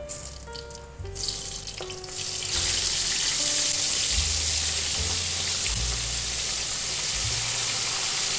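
Food sizzling as it fries in hot oil in a wok. The sizzle starts about a second in and swells to a steady loud hiss. Soft background music plays underneath.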